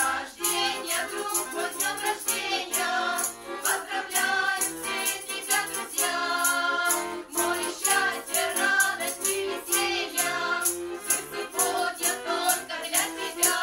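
Women's folk ensemble singing a song together, accompanied by an accordion and a tambourine shaken in a steady rhythm.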